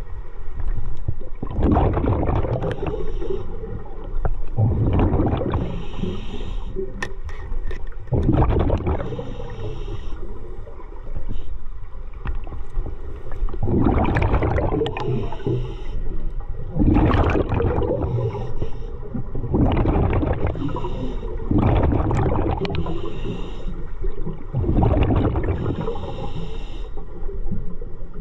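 Scuba regulator breathing underwater: a burst of rumbling, gurgling exhaust bubbles about every three seconds, with hissing between the breaths.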